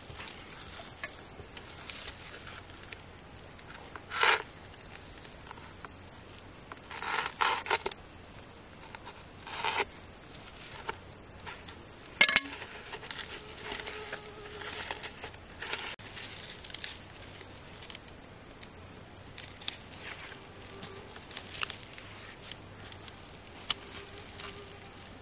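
Insects chirring steadily in a high, fast-pulsing drone, with a few sharp knocks and clinks scattered through, the loudest about halfway.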